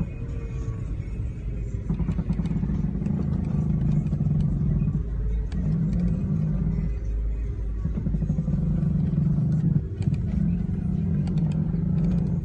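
A 2003 Ford Mustang V6 creaking while turning slowly: a low groan that comes and goes in stretches of one to three seconds, over a steady low rumble.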